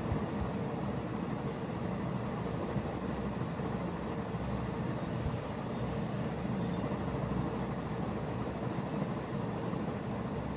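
Fingers massaging oil into long hair and scalp close to the microphone: a continuous rubbing and rustling.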